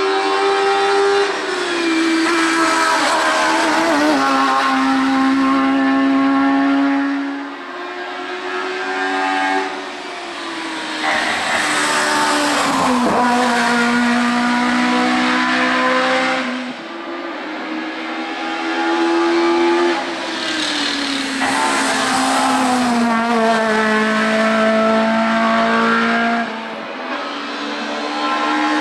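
Hill-climb race cars running hard, the engine pitch climbing and dropping back with gear changes. Several runs follow one another, with short dips in level between them.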